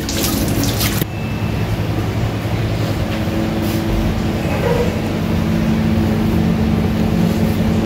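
A steady low mechanical hum, like a motor or fan running, with a short burst of noise in the first second.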